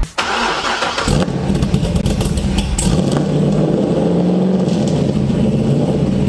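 A 2007 Corvette's LS2 V8, fitted with an aftermarket camshaft, firing up through its exhaust. It gives a loud rev about a second in, then settles into a steady idle.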